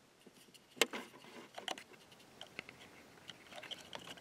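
Faint, scattered small clicks and taps of hand handling, the loudest a sharp click about a second in.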